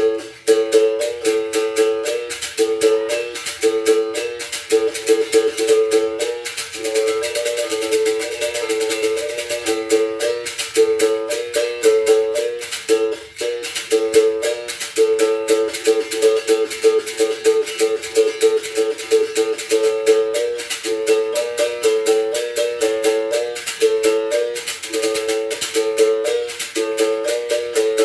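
Berimbau viola, the small high-pitched capoeira berimbau, played in a repeating rhythm that alternates between a few close notes, with the caxixi rattle shaking along on every stroke.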